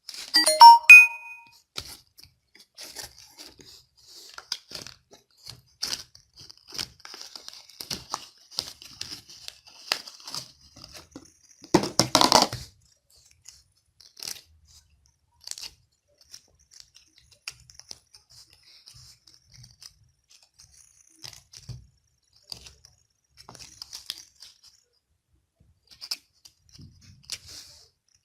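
Slime being squeezed and played with by hand: scattered small crackles and pops, with a louder burst of crackling about twelve seconds in. A short bright chime rings right at the start.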